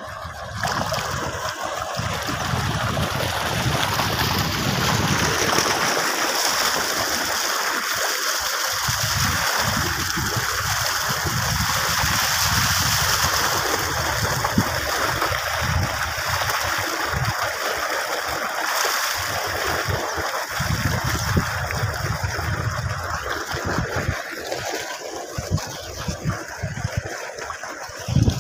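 Tubewell water gushing from a pipe into an irrigation channel: a steady rushing splash. There is a single bump right at the end.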